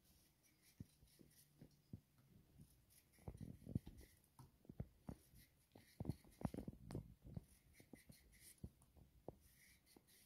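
Faint scraping and small clicks of a small knife paring strips of skin off a zucchini by hand. From about three seconds in come a run of short, dull knocks.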